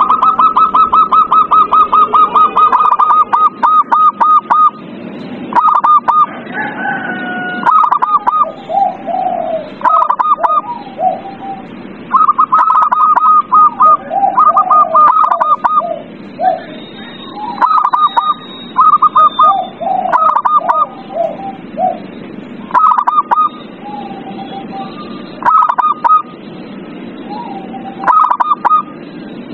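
Zebra doves (perkutut) cooing in short staccato notes. A fast run of repeated notes opens, followed by clusters of three to five notes about every two seconds, with softer, lower coos in between.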